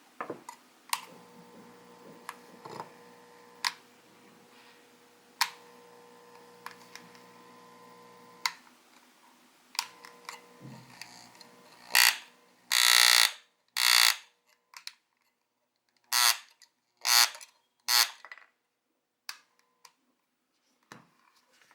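Aoyama electric massager with a faint steady hum and scattered clicks, then about six loud, short buzzing bursts a little over halfway through: the noise the massager is faulted for making.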